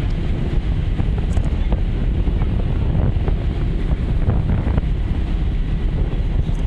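Strong wind buffeting the microphone on the deck of a moving ferry: a steady, rumbling rush with no break.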